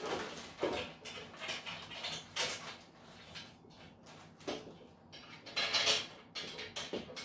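Metal cage frame parts being handled and fitted together by hand: irregular scrapes, rubs and light knocks of the bars and fittings.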